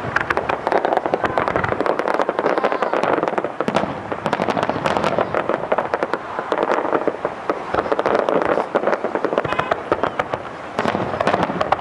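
Aerial fireworks display: many sharp bangs and crackles in quick succession as shells burst overhead.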